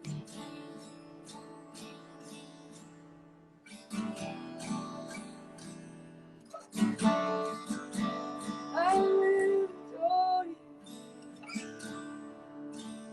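Worship music on a strummed acoustic guitar, with a voice singing a few held, wavering notes in the louder middle stretch.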